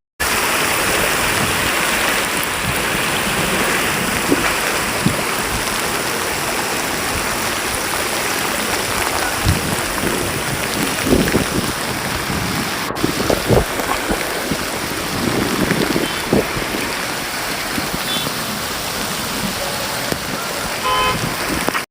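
Heavy rain pouring steadily, with water rushing, and a brief vehicle horn toot near the end.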